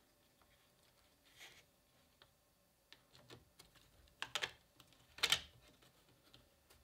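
Light plastic clicks and taps from a 3D-printed lid being fitted and pressed onto a 3D-printed Raspberry Pi housing, with louder clacks about four and five seconds in as it goes into place.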